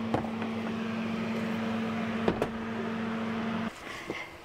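A steady mechanical hum with one low tone, which cuts off suddenly about three and a half seconds in, with a few light clicks over it.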